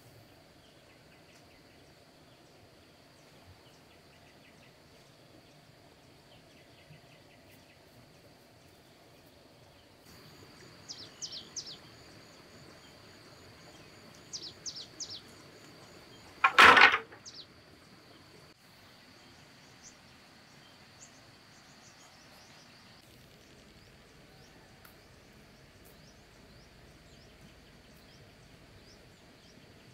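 Insects droning in a steady high whine, with a bird calling in three quick falling notes, twice, about a third of the way in. Just past the middle comes one loud, sudden noise lasting about half a second, the loudest sound here.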